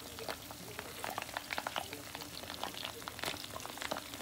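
Chicken karaage deep-frying in hot oil in a small mess tin: a steady sizzle full of small, rapid crackles and pops.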